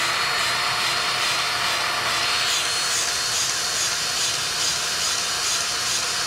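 Cordless grease gun running steadily, its motor whining with a fast regular pulse of pump strokes, about three a second, as it pumps grease into a grease fitting on a truck's chassis.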